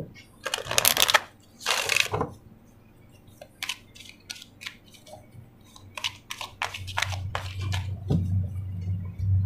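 Oracle card deck being shuffled by hand: two long riffling rushes of cards in the first couple of seconds, then a run of quick card snaps and taps as the deck is split and handled.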